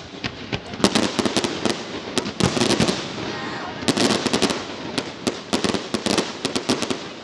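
Fireworks display going off in a rapid barrage: dozens of sharp bangs in dense clusters, some close together like a volley, following one another throughout.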